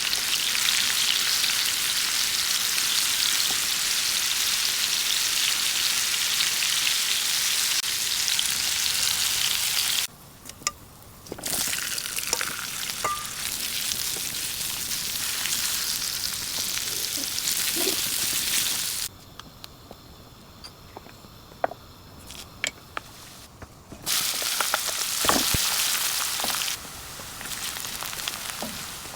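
Food frying in hot oil, a steady loud sizzle that cuts out abruptly twice for a few seconds. A few light clicks and taps are heard in the quieter gaps.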